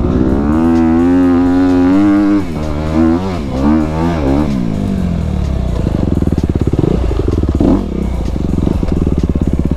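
Honda CRF250RX single-cylinder four-stroke dirt bike engine running under throttle, pitch held high, then dropping about two seconds in, rising again briefly, and settling into a lower steady run.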